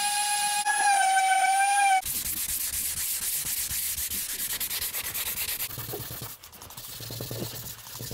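AEG random orbital sander running on a fibreglass surfboard with a steady high whine, its pitch dipping briefly just before a second in. At about two seconds it gives way to hand sanding with a sanding block: fast rasping strokes of sandpaper on fibreglass, turning softer and lower near the end.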